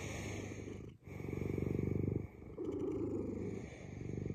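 Black-and-white domestic cat purring right at the microphone, in swells that rise and fall with each breath, with a brief break about a second in.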